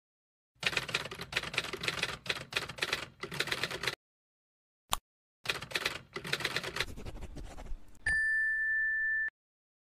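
Typewriter sound effect: a run of rapid keystrokes, one single click about five seconds in, then a second run of keystrokes. It ends on a bell ding that holds for about a second and cuts off.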